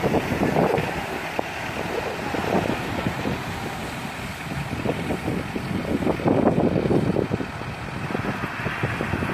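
Wind gusting across the microphone in irregular low buffets, over the wash of surf breaking on the beach.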